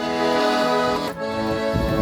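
Garmon (Russian button accordion) playing sustained chords over bass notes, moving to a new chord about a second in, as the instrumental introduction before the singing.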